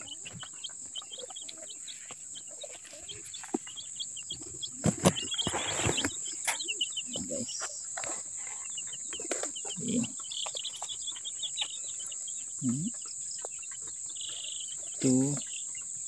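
A boxful of Rhode Island Red and Barred Plymouth Rock chicks peeping continuously in many short high chirps, over a steady high insect trill. A loud rustle of the cardboard box being handled comes about five seconds in.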